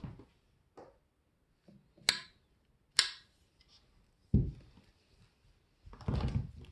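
A few separate sharp knocks and clacks, a dull low thud, then a short rough low clatter near the end: objects being handled and set down.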